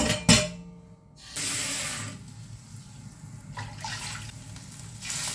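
Water rushing and splashing as it is poured from a stainless steel bowl into a wok, after a sharp metallic clank of the bowl about a quarter second in; the water is loudest for about a second near the start.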